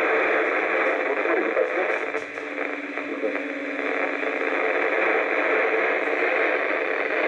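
Yaesu FT-857 transceiver receiving the ISS Russian-segment FM voice downlink: thin, hissy radio audio from a weak signal, with voice hard to make out through the noise. A steady low hum joins about two seconds in.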